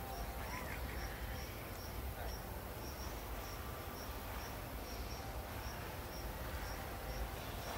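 Forest ambience: an insect chirping, a short high note repeated evenly about two to three times a second, over a steady low rumble.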